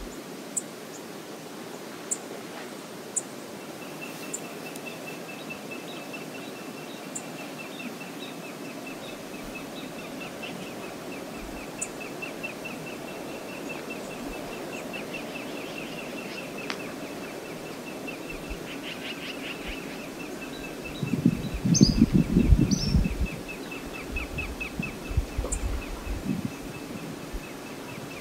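Outdoor wildlife-cam ambience by the water: a steady rushing background, with a long, rapid high-pitched trill from about four seconds in until near the end. A loud low rumble breaks in for a couple of seconds past the twenty-second mark.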